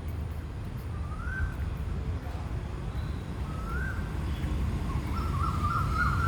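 A bird calling: a rising whistled note about every two and a half seconds, then from about five seconds in a quicker run of notes at the same pitch, over a steady low rumble.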